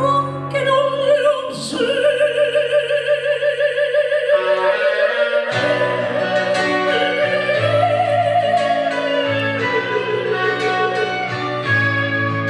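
Operatic singing voice holding long notes with wide vibrato over piano and guitar accompaniment; the accompaniment changes chord about halfway through.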